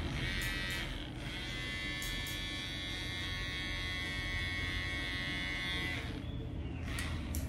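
Corded electric hair clipper buzzing as it cuts a fade along the side of the head. The buzz breaks off briefly about a second in and fades out about six seconds in.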